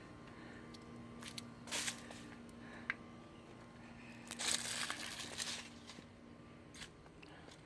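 Faint steady hum of an electric shop fan, with a few light clicks and brief hissy handling noises, the longest lasting about a second just past the middle.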